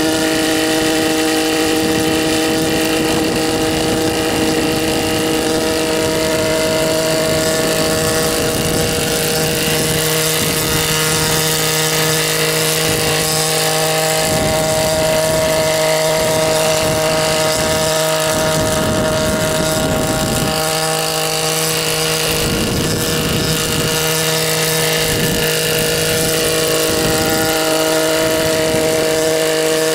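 Helipse HE 300 unmanned helicopter in flight: its 121.6 cc two-stroke engine runs at a steady, even pitch with the main and tail rotors turning.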